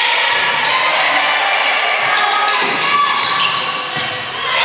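Gymnasium noise during a volleyball match: many voices chattering in an echoing hall, with a sharp knock about three seconds in.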